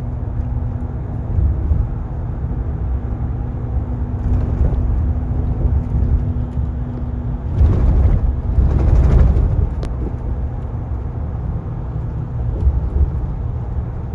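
Inside a moving bus: a steady low engine and road rumble, with a hum that stops about seven and a half seconds in, followed by a louder rushing noise for about two seconds.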